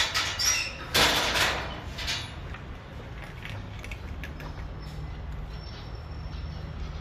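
Cats eating from a plastic plate of rice and cat food: a cluster of noisy crunches and scrapes in the first two seconds, loudest about a second in, then quieter with a low steady hum underneath.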